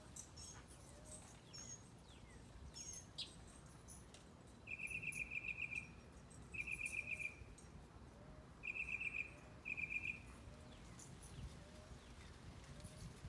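A morning chorus of birds: scattered high thin chirps over a faint short note repeated about every half second, with four short rapid trills in the middle.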